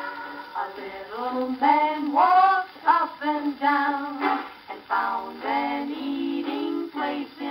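A shellac 78 rpm record playing on a Victrola VV-X acoustic gramophone: women singing a popular song.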